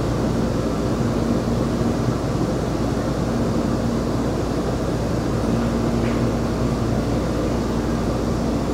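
Interior running noise of a Seoul Metro Line 9 train at speed: a steady rumble of wheels on rail, with a low hum that comes and goes.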